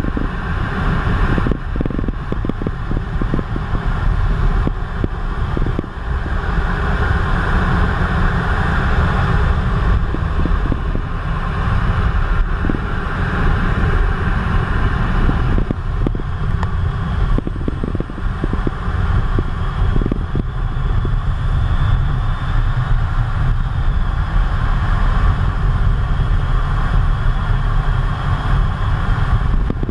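Cockpit noise inside a Eurofighter Typhoon in low-level flight: a steady, loud, deep rumble of engine and rushing air, with a dense hiss over it and buffeting on the microphone.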